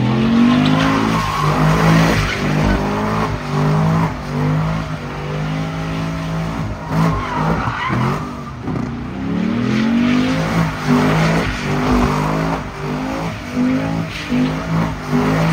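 Chevrolet Camaro doing donuts in a burnout: tyres squealing and skidding on the pavement while the engine revs up and down again and again.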